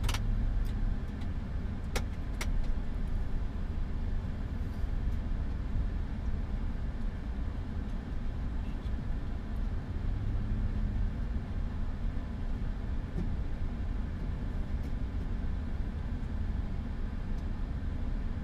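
Steady low rumble and air hiss inside an Airbus A330 cockpit during pushback from the gate, with the engines not yet started. Two faint clicks come about two seconds in.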